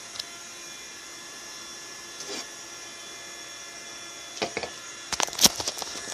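Low steady electrical hum of several even pitches, with a few sharp knocks and clicks, a cluster of them about five seconds in, the loudest of these near the end.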